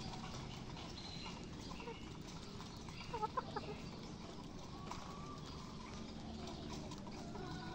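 Chickens clucking softly as they feed, with a short run of several clucks a little past the middle.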